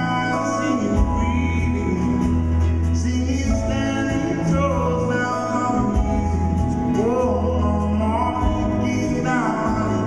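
Live band music: a male lead singer holding and sliding long notes over acoustic guitar, electric guitar, drums and low bass notes.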